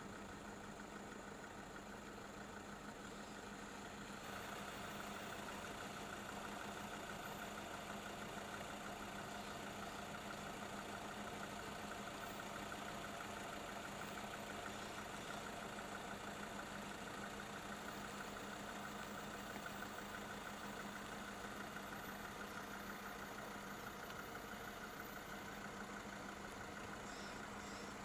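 A vehicle engine idling steadily, a low hum that grows a little louder about four seconds in.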